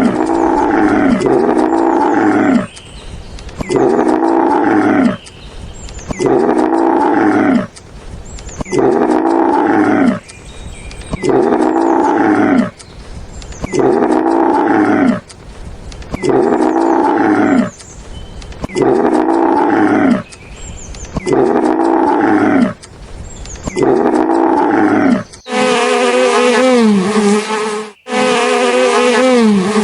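An animal's loud call, repeated over and over in pairs of roughly one-second calls that fall in pitch. About 25 seconds in it gives way to a steady buzzing like a flying insect.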